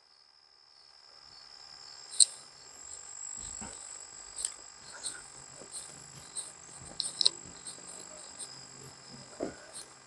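Steady high-pitched chorus of crickets and other insects, starting about a second in, with scattered light ticks and scuffs over it, the sharpest one just after two seconds.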